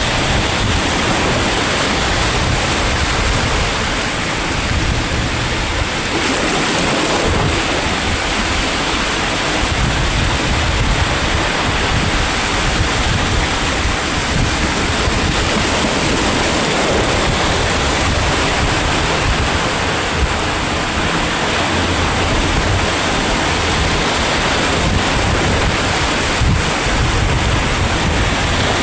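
Sea waves breaking and washing on the shore: a steady, continuous rush of surf.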